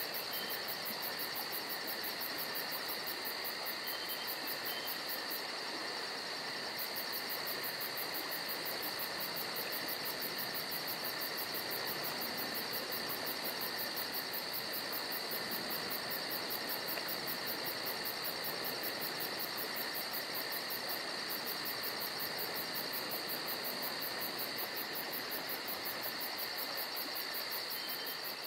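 Insects chirring steadily in a continuous high trill.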